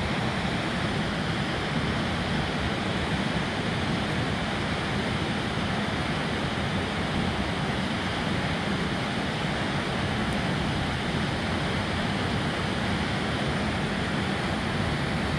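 River rapids rushing steadily, a constant broad wash of water noise.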